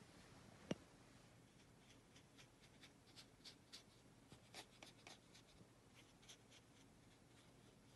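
Paintbrush working in a clear plastic watercolour palette: one sharp click about a second in, then faint, irregular short scratching strokes.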